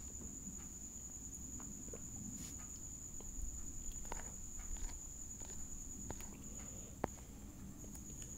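Quiet room background: a steady, thin high-pitched whine over a low hum, with scattered faint clicks and knocks and one sharper click about seven seconds in.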